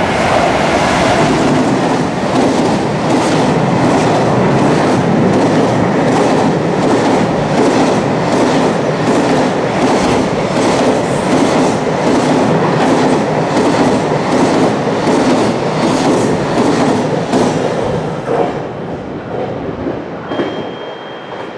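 Long freight train of container wagons passing at speed, its wheels clattering in an even rhythm over the rail joints. The clatter fades away near the end as the last wagons go by.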